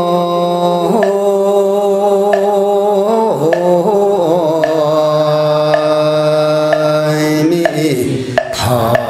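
Buddhist chanting: a voice drawing out long, held notes that step to a new pitch a few times, over regular knocks about once a second.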